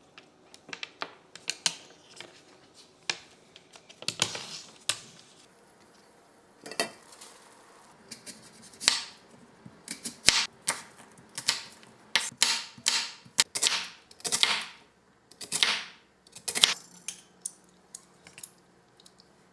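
Kitchen food-prep clatter: irregular sharp taps and clicks of utensils and dishes, mixed with several half-second scraping strokes, coming thicker in the second half.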